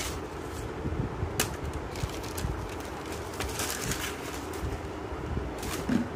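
Tissue paper and a cardboard shoebox rustling and crinkling in short bursts as a shoe is unpacked by hand, over a steady low background hum.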